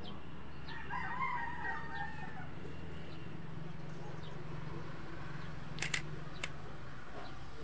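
A rooster crowing once, about a second in, over a steady low hum. A few sharp clicks follow about six seconds in.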